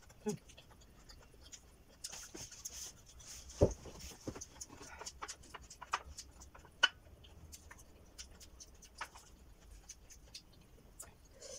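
Chewing and crunching raw vegetables close to the microphone, in scattered small clicks and crackles, with a sharper click about three and a half seconds in.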